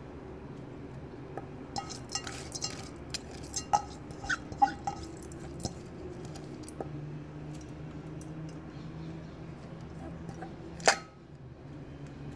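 Light metallic clinks and taps against a stainless steel pot, a cluster of them in the first half and one sharper clink near the end, over a steady low hum.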